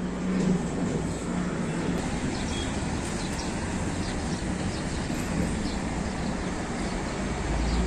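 Stick welding arc crackling steadily, with a low hum underneath.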